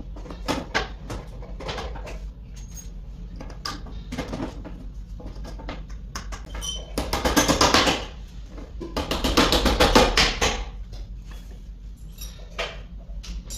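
Hands handling flat-pack cabinet panels and hardware: scattered knocks and taps, with two longer spells of rapid rattling and rustling about seven and nine seconds in. A steady low hum runs underneath.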